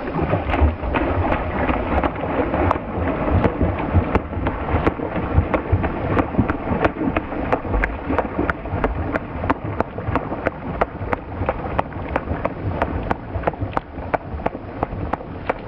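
Common loon's takeoff run across a lake: its feet and wings slap the water in a steady run of splashes, about three or four slaps a second.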